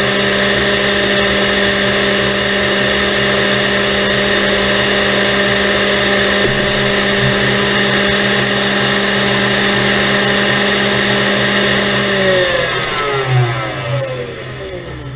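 Electric stand mixer beating egg whites with its wire whisk: a loud, steady motor whine. A little before the end the mixer is switched off and the whine falls in pitch as the motor spins down.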